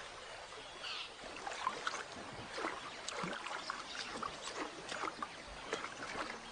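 Water sloshing and splashing irregularly as a lion tugs at a hippo carcass in a shallow pool, with scattered short wet knocks.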